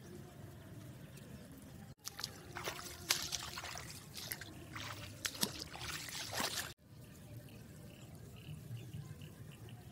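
Water trickling and splashing in a flooded field, louder and busy with clicks and knocks from about two seconds in, then cutting off abruptly short of seven seconds. Faint short chirps come near the end.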